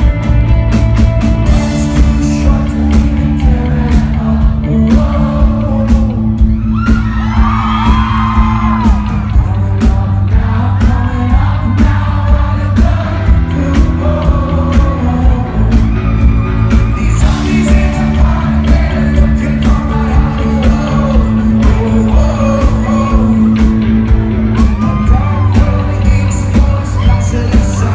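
Rock band playing live: steady drums and a heavy bass line under a lead singer's voice.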